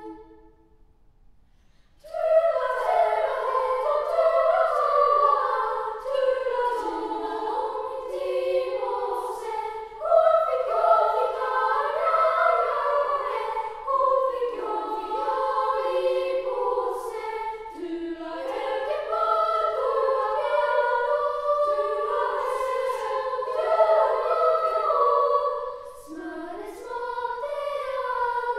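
Girls' choir singing a Swedish folk song a cappella, several voices at once. The singing starts after about two seconds of near silence.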